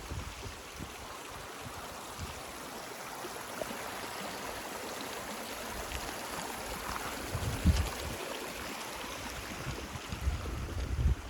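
Mountain creek running over rocks, a steady rushing of water, with a few low thumps of wind on the microphone about two-thirds of the way through and again near the end.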